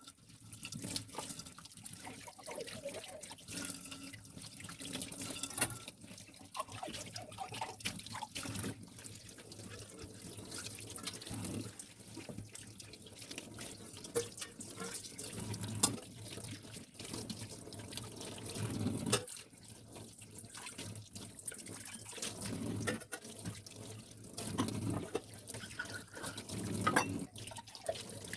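Water running from a tap into a sink, with scattered knocks and clinks throughout.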